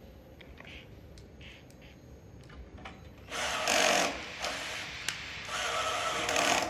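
Handheld power driver run twice, about a second each time, driving bolts at a scooter's front wheel.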